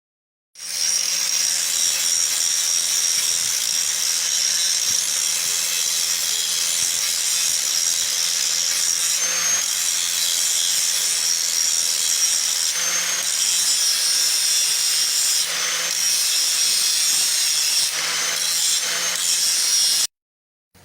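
Handheld power tool running under load: a loud, steady, high-pitched grinding or cutting noise that shifts briefly a few times and then cuts off abruptly.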